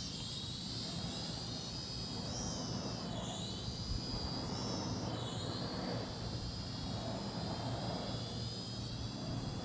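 SNAPTAIN SP600 quadcopter drone flying at a distance, its small propeller motors giving a high whine that dips in pitch twice, a few seconds in and again near the middle, as the motor speeds change.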